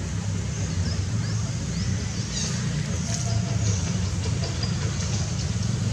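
A steady low rumble throughout, with a few faint short high chirps near the middle.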